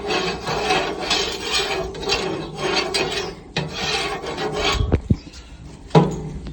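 A utensil scraping back and forth across a barbecue hotplate in rough strokes, about two a second, then two sharp knocks near the end.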